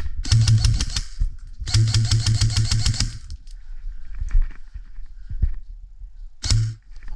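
Airsoft rifle firing in rapid full-auto bursts: a burst of about a second, a longer one of about a second and a half, and a short one near the end.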